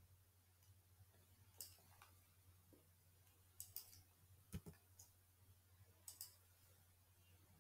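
Faint, scattered clicks of a computer mouse and keyboard over near silence and a faint low hum, some in quick pairs, one pair about six seconds in.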